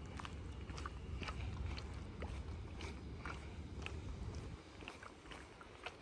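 Outdoor street ambience while walking: a low rumble that drops off about four and a half seconds in, with scattered short light ticks.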